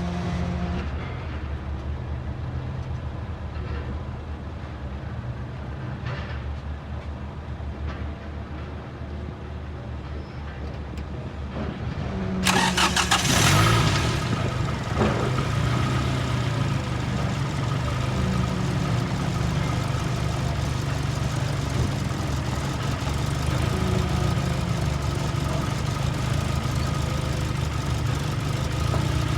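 Toyota Camry engine cranked and started about twelve seconds in, with a loud burst as it catches, then settling into a steady idle. It is being test-run after a gasket was replaced while chasing a misfire.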